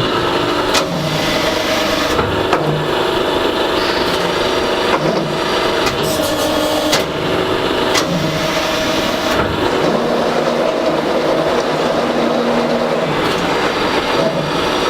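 Hydraulic CNC press brake running in a sheet-metal shop: a steady machine hum with several sharp knocks spread through it as the sheet metal is bent and handled.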